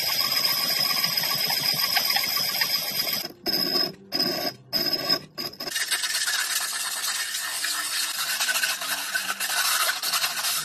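The cut rim of a glass tumbler ground in circles on a wet abrasive mat: a steady gritty rasp, broken by a few short pauses around three to five seconds in. From about six seconds in, sandpaper is rubbed against the glass, a brighter hissing scratch that cuts off suddenly at the end.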